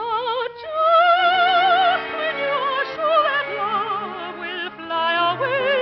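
A soprano singing in operatic style, holding long notes with a wide vibrato, over orchestral accompaniment.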